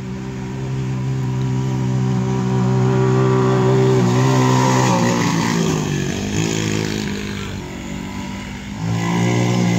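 Small side-by-side UTV engine running, holding a steady pitch, then dropping and wavering about five seconds in, and picking up again near the end as the throttle changes.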